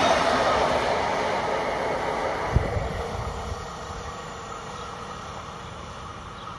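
Departing ÖBB push-pull passenger train rolling away along the rails, its wheel and running noise fading steadily as the last coach passes and leaves. A single low thump comes about two and a half seconds in.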